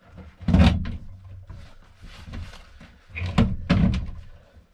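Van bucket seat being shoved and set down onto its floor mounting bolts: two loud bumps and scrapes, one just after the start and one about three and a half seconds in, with softer rustling and handling in between.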